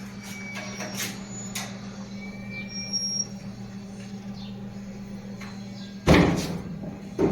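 Maytag dryer being handled during reassembly: a steady low hum under scattered light clicks and short squeaks, then two heavy thumps, about six and seven seconds in.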